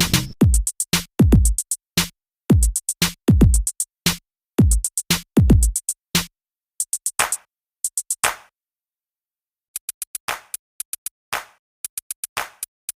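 Hip-hop backing music: a drum-machine beat of deep booming kicks and crisp snare and hi-hat hits, which drops to only the high hits about six seconds in, falls silent briefly, then comes back with sparse hits.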